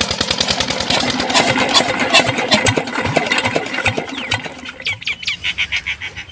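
A Petter-type 25 HP diesel engine driving a tubewell pump, running with a fast, even exhaust beat. Over the last two seconds or so the beat becomes quieter and more widely spaced.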